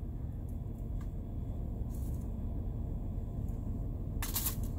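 Steady low rumble inside a parked car's cabin, with a few faint clicks as small pieces of jewelry are handled and a short rustle about four seconds in.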